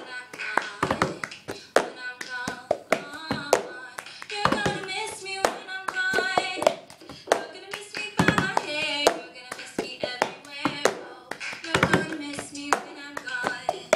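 Hands drumming a rhythm on a pot, with sharp slaps and taps, while a girl sings a tune over it.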